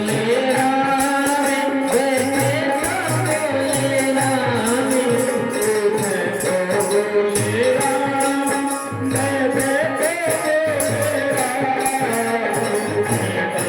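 Devotional kirtan music: a sung melody held on long, bending notes over jingling hand percussion and a drum keeping a steady beat.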